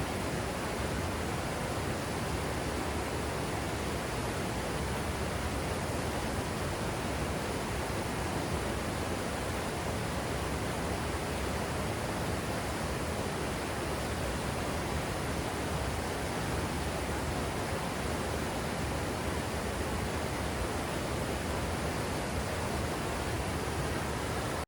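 Steady rushing of a waterfall, an even roar of falling water at a constant level that cuts off abruptly at the end.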